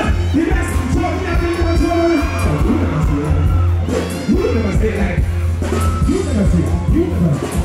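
Live stage music played loud through a PA, with a steady heavy bass, and a man singing and chanting into a handheld microphone over it.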